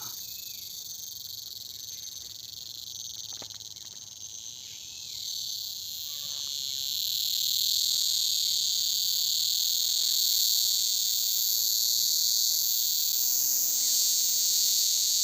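A dense, steady, shrill chorus of rainy-season crickets, growing louder about six seconds in.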